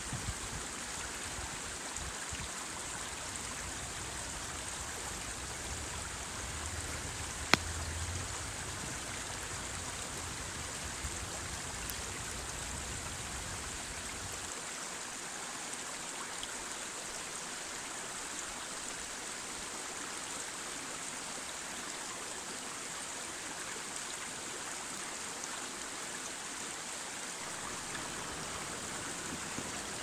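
Steady rushing of running water from a stream, with one sharp click about seven and a half seconds in.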